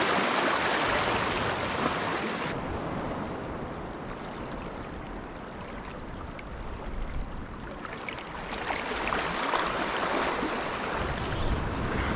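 Small waves washing on the shore, a steady rushing hiss that is louder at first, eases off in the middle and builds again near the end.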